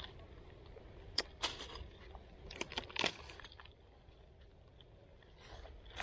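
A few crisp crunches and snaps from hands handling a cluster of mushrooms among dry fallen leaves. There are two short groups, about a second in and around three seconds in, then it goes quieter.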